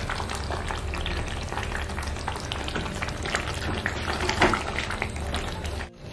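Thick chicken curry gravy sizzling and crackling in a stainless steel kadai, with a wooden spatula stirring it, over a steady low hum. The sound cuts off suddenly shortly before the end.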